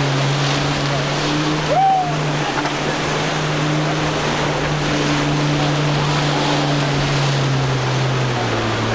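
Boat outboard motor running steadily under way through choppy inlet water, its drone dropping slightly in pitch near the end, over the steady wash of waves and spray. About two seconds in, a brief rising whistle-like call sounds over it.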